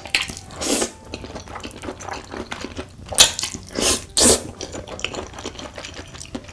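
A person slurping saucy spicy stir-fried ramen noodles up close: four loud wet slurps, the first about half a second in and three bunched together in the middle, with softer wet mouth sounds between.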